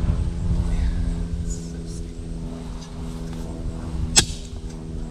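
A motor running steadily with a low rumble underneath, and one sharp knock about four seconds in.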